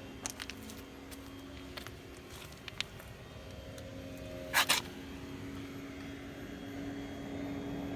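A steady mechanical hum with a few clicks, and two short, loud bursts of hissing noise about halfway through. The hum grows slightly louder near the end.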